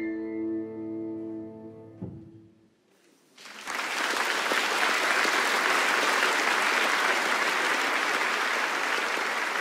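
A symphony orchestra's final held chord fades and stops about two seconds in. After a brief near silence, a large audience breaks into steady applause about three and a half seconds in.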